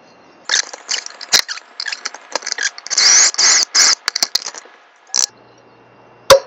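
Spring clamps being taken off a guitar headstock and the neck shifted on a wooden board: irregular scraping and rustling with sharp clicks and a brief squeak, then a sharp knock near the end.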